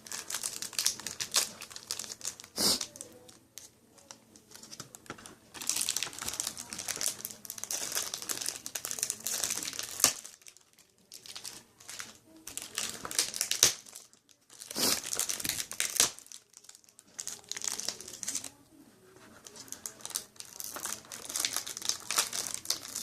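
Plastic and cardboard trading-card packaging crinkling and rustling in irregular bursts as items are handled and pulled out of the box, with a few sharp clicks and short pauses between.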